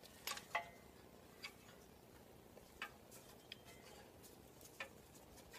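A few faint, irregular metallic clicks and taps of an F-clamp being positioned against a disc brake caliper, over near silence.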